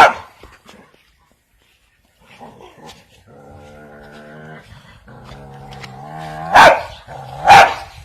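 A dog growls steadily and low for about three seconds during a fight with a chicken, then gives two loud barks about a second apart near the end. There is one sharp bark right at the start.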